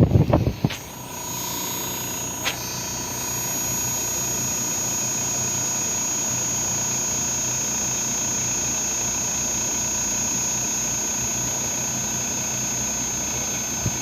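Panasonic air conditioner running with a steady hum and a steady high-pitched whine: the noise problem it is being recorded for. Two sharp clicks come in the first few seconds.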